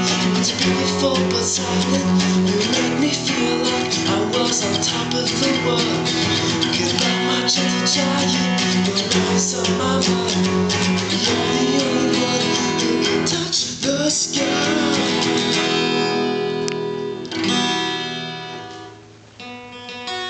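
Acoustic guitar strummed steadily with chords ringing. Near the end the strumming stops, the notes ring out and fade, and then the playing starts again more quietly.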